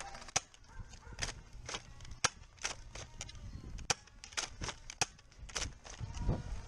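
A string of short sharp taps or clicks, about two a second and somewhat irregular. A low rumble swells near the end.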